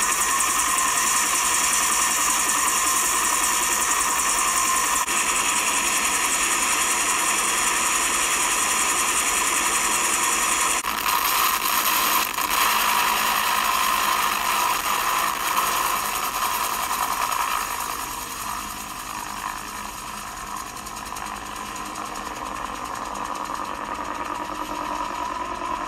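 Bell UH-1D Huey helicopter running, its rotor giving a fast, steady mechanical chop. The sound drops in level about two-thirds of the way through.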